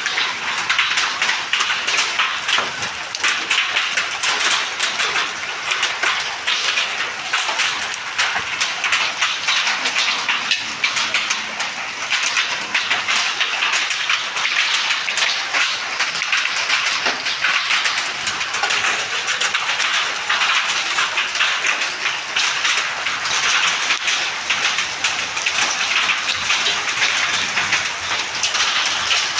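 Heavy rain falling steadily: a dense, even hiss of countless drops striking a surface.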